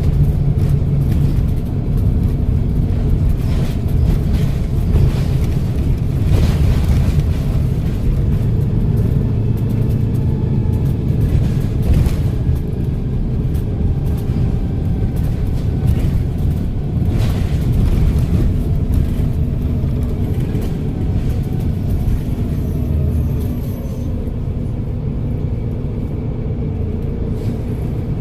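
Volvo B7RLE bus's six-cylinder turbodiesel engine running under way with a steady low rumble, over which a faint turbo whistle and gearbox whine slide up and down as it pulls away and eases off. Occasional short knocks and rattles come through.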